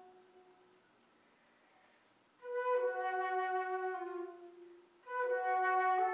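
Solo flute played in its low register. A held note fades out; after a pause of about a second and a half come two short phrases, each starting on a brief note and dropping to a longer low held note.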